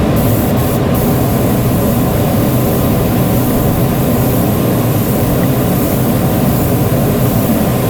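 A machine running steadily and loudly, with no change in speed.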